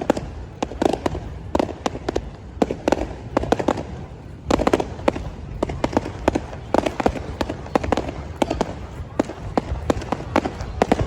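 Aerial fireworks bursting in quick, irregular succession: sharp bangs and crackles several times a second over a steady low rumble.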